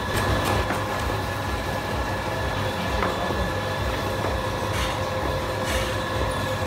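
Cleaver cutting through stacked rice-flour noodle sheets and knocking on a wooden board a few times, over a steady mechanical hum with a couple of fixed whining tones.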